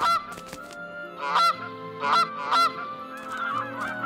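Cartoon Canada goose honks: four single honks spaced about a second apart, then many honks overlapping as a flock from about three seconds in.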